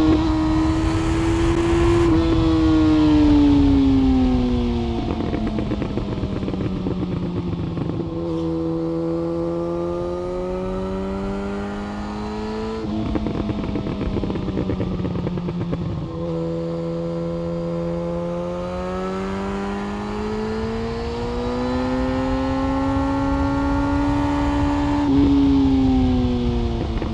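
Yamaha FZ1's inline-four engine through an aftermarket SC-Project exhaust on the move. The engine note falls away and climbs again several times as the throttle closes and opens, with rougher, crackly patches where it comes off and back on the throttle.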